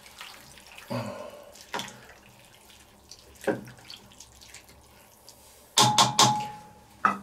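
A wooden spatula stirring chunks of meat and mushrooms in broth in a stainless steel kettle: scattered wet sloshing and scraping strokes. About six seconds in there is a louder cluster of knocks with a brief ring from the steel pot.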